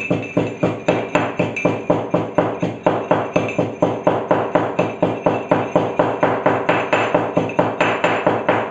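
Cardamom being pounded with a pestle in a mortar: a fast, even run of sharp strikes, about five a second, with a light ringing, stopping right at the end.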